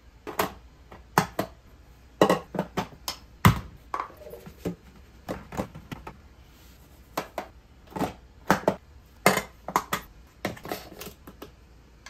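Clear plastic OXO POP canisters, their lids and a plastic scoop being handled as powders are scooped and poured in: an irregular string of sharp clicks, taps and knocks, about twenty in all.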